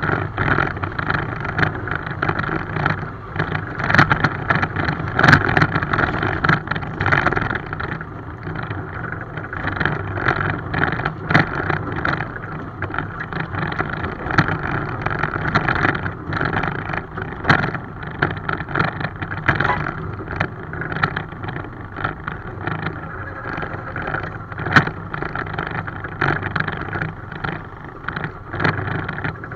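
Small 7¼ inch gauge miniature railway locomotive and train running along the track. A steady running noise with frequent irregular clicks and knocks.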